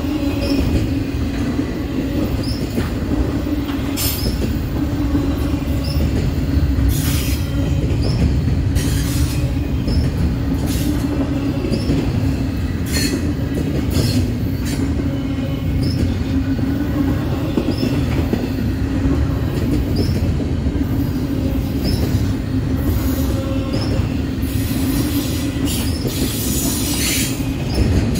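Freight train rolling past: a steady low rumble of wheels on rail with a constant hum, and short clicks about once a second as the wheels cross rail joints.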